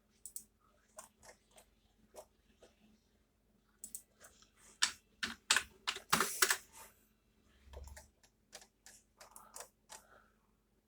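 A series of irregular sharp clicks and taps, thickest and loudest about five to six and a half seconds in, with a short low thump near eight seconds.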